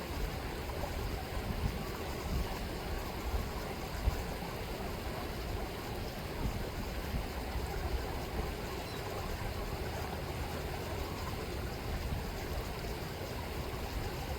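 Chilliwack River water rippling and rushing in a steady, even stream.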